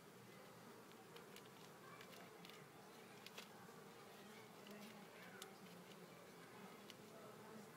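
Faint, steady hum of a mass of honeybees crawling over cut-out comb and a hive frame, with a few faint clicks.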